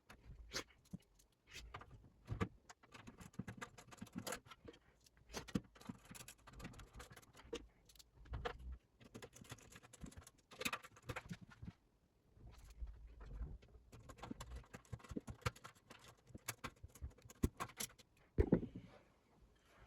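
Hands handling computer parts during a PC build: many small clicks, taps and rattles, with a louder knock near the end.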